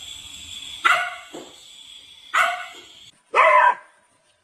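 A dog barking: a few short sharp barks spaced about a second and a half apart, the last one longer and pitched, like a yelp.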